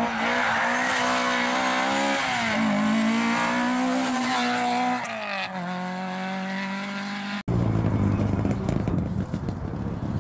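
Rally car engine revving hard, with a quick drop in pitch about two seconds in at a gear change, then climbing again before easing off as the car moves away. After a sudden cut about three quarters of the way through, another rally car's engine is heard, rougher and noisier.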